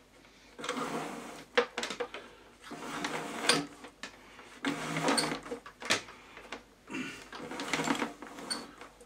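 Rubbing and scraping in four bouts about two seconds apart as a mains power cable is worked through a cable retainer, with small clicks among them.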